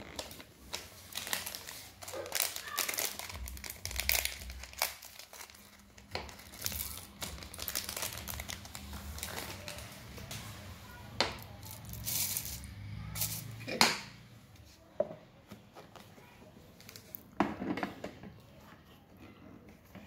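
Crinkling and rustling of a small packet being handled and torn open over a stainless steel grinder jar, with a few sharp knocks, the loudest about two-thirds of the way in.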